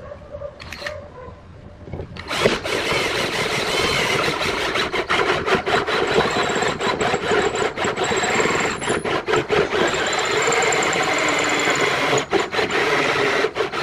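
A tool cutting or abrading wood, starting about two seconds in: a steady, loud grinding noise broken by many brief gaps.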